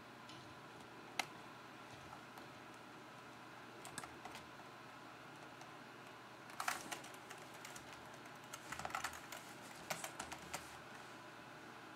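Computer keyboard keys tapped to step through a BIOS setup menu: a single click about a second in, a couple near four seconds, then quick runs of taps from about six and a half seconds to ten and a half seconds.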